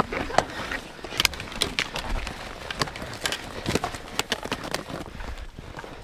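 Ski-touring boots and skis handled on snow: a string of irregular sharp clicks and knocks, about two a second, thinning out near the end.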